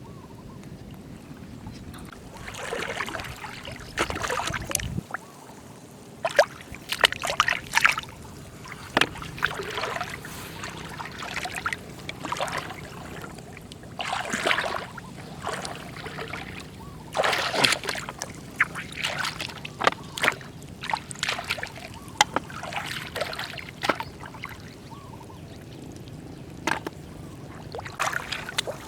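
Shallow moving water splashing and sloshing in irregular bursts, as from hands or feet working through it, with a few sharp clicks among them.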